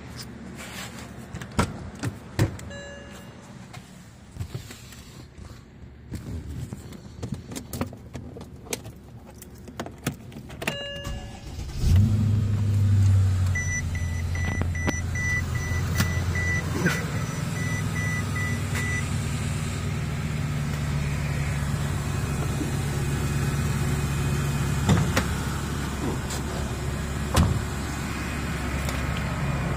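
Mercedes-Benz CL 550's 5.5-litre V8 starting about 12 seconds in, flaring briefly and then settling into a steady idle. Before it come a few clicks and two short chime tones. Just after the start, a rapid series of short warning beeps runs for about five seconds.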